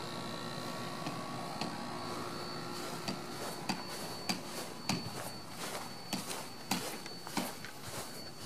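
Footsteps of a person walking over lawn and a paver driveway, starting about three seconds in at a steady pace of a step roughly every half second or so. Before them, a steady hum with a thin high whine.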